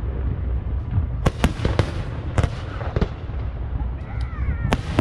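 Aerial firework shells bursting: a quick cluster of sharp bangs from about a second in, more near the end, over a continuous low rumble.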